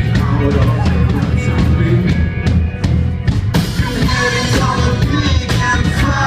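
Live rock band playing: drum kit keeping a steady beat under bass and electric guitar. The sound gets fuller and brighter about halfway through.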